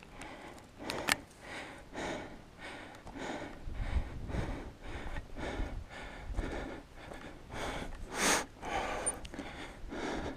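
A hiker breathing hard and fast while climbing a steep mountain trail, with a rhythmic exhale every half second to a second. The strongest breath comes near the end.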